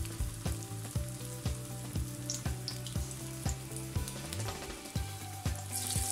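Batter-coated stuffed spine gourds (kakrol) deep-frying in hot oil on a medium flame, a steady sizzle. Near the end the sizzle flares as another coated gourd is lowered into the oil. Background music with a steady beat, about two beats a second, runs underneath.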